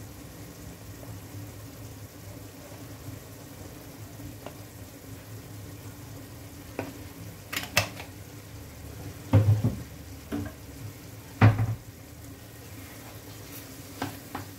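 Tomato, pepper and eggplant mixture sizzling in a frying pan over a steady low hum, with a handful of sharp knocks as a wooden spoon stirs and strikes the pan, the loudest a little past the middle.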